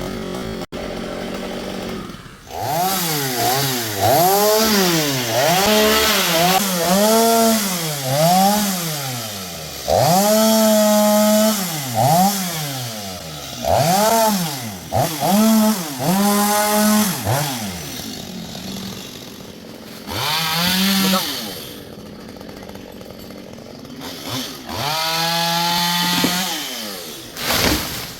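Two-stroke chainsaw revved up and down in quick, repeated bursts, about one a second, with several longer stretches held at full throttle as it saws through branches.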